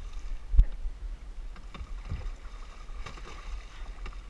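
Water splashing at the boat's side as a hooked mako shark thrashes at the surface, over wind rumbling on the microphone. A hard thump about half a second in is the loudest sound, with a weaker one about two seconds in.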